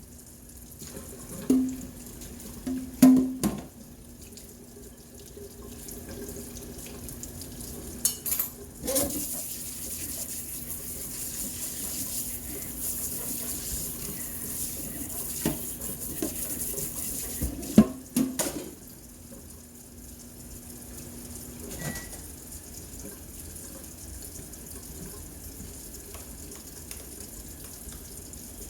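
Kitchen sink tap running for about ten seconds in the middle, with a few sharp knocks of dishes or utensils before and after it and a steady low hum underneath.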